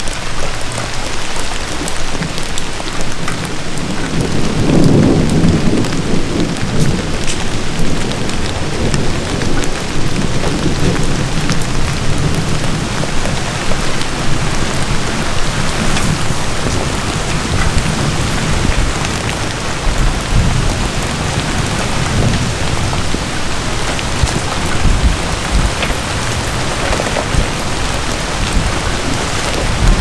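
Steady rain falling in a forest, with scattered close drops ticking. A low rumble of distant thunder swells about four to seven seconds in, and fainter rumbles come later.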